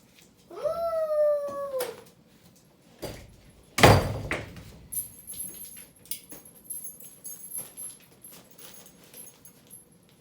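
A dog whining once, a drawn-out call of about a second and a half that sags slightly in pitch, followed about two seconds later by two thumps, the second the louder, then faint light clinking.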